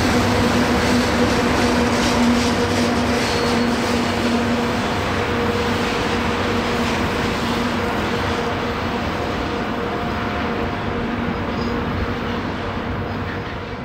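A VL80S two-section electric pusher locomotive at the rear of a freight train of tank cars passes and moves away. The rolling noise of wheels on rail carries a steady hum and fades slowly as the locomotive recedes.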